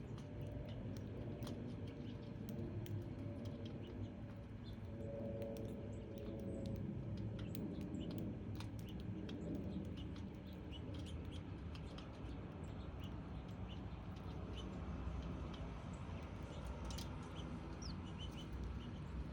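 House sparrows chirping: many short, separate chirps scattered irregularly, over a steady low background rumble.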